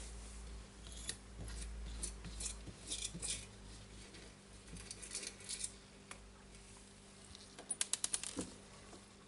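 Small steel balls clicking against the steel hammer of an impact driver's impact mechanism as they are fitted into it by hand: scattered light clicks, then a quick run of about seven sharp metallic clicks near the end.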